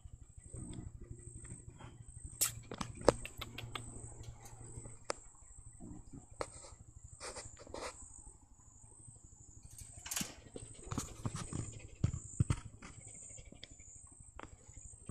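A steady high insect trill in the background, with scattered sharp clicks and knocks.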